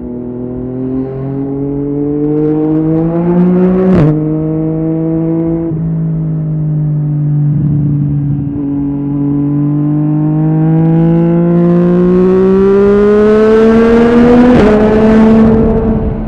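Yamaha MT-09's inline-three engine through an Akrapovic exhaust, pulling hard under acceleration with the pitch climbing through the revs. A quickshifter upshift cuts in with a sharp crack and a drop in pitch about four seconds in, and another near the end. Rising wind rush builds as the speed goes up.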